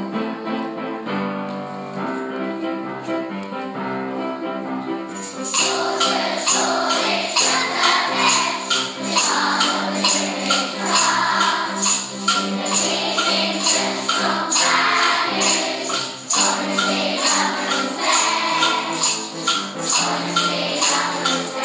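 Upbeat intro music. It opens with sustained pitched chords, and about five seconds in it jumps to a louder, fuller arrangement driven by a steady, evenly spaced percussion beat.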